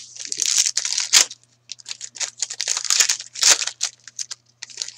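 Foil trading-card pack being torn open and its wrapper crinkled in the hands: a run of crackling rustles with a couple of sharper crackles, about a second in and about three and a half seconds in.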